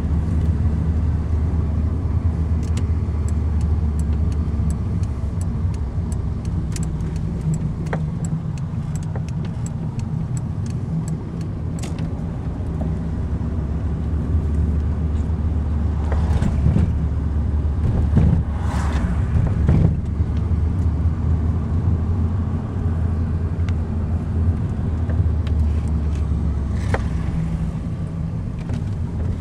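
A car's engine and tyre noise heard from inside the cabin while driving, a steady low drone. A scatter of light clicks comes in the first dozen seconds, and it swells louder a few times in the second half.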